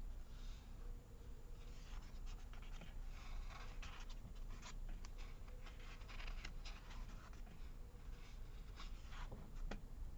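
Paper sticker sheets and planner pages being handled: soft rustling, with small crisp clicks and taps scattered through.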